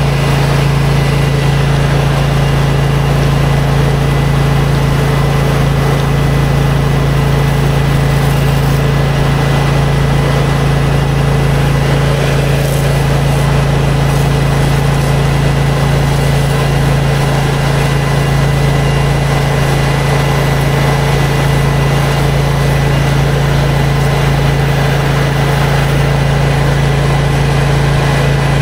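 Pressure washer's gas engine running steadily, with the even hiss of the high-pressure water spray.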